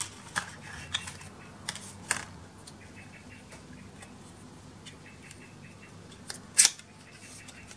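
Cardboard and paper packaging of an Apple Watch charger being handled: a few light taps and rustles in the first two seconds, then one sharp click about two-thirds of the way through.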